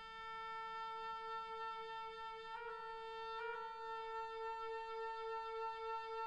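Orchestral soundtrack music holding one long sustained note, with brief re-attacks about two and a half and three and a half seconds in.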